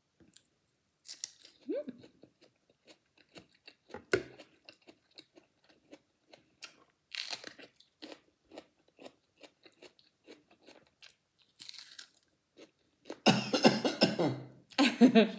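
Close-up chewing and crunching of raw mini sweet peppers: a run of small crisp crunches, louder and denser near the end.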